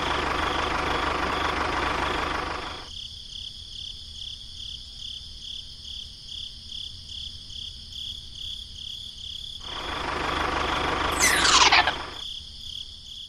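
A miniature toy tractor runs for the first three seconds and again from about ten to twelve seconds. Under it, a steady high chirping pulses about twice a second throughout. A quick falling sweep sounds just before the tractor stops.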